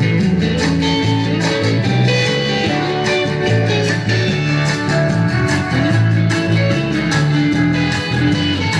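Background music led by guitar, with a steady beat and a bass line.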